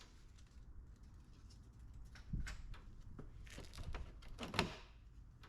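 Faint, scattered plastic clicks and knocks, a handful over a few seconds, as the front bumper grilles of an Audi A4 B6 are worked loose and unclipped.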